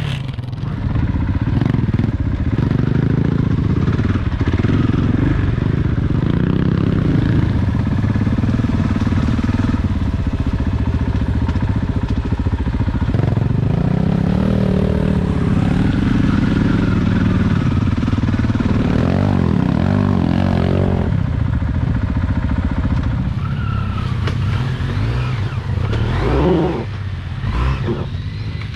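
Enduro dirt bike engine running hard on a trail ride, its revs rising and falling over and over as the throttle is worked.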